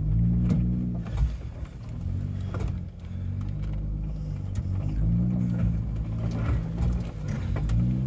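A Jeep's engine heard from inside the cabin, revving up and easing off in low-speed surges as it crawls over a fallen tree on a snowy trail, with a few knocks from the vehicle.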